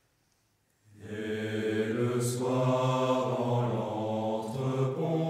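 Choir of low voices singing a slow song in French. After a second of silence they come in together on long held chords.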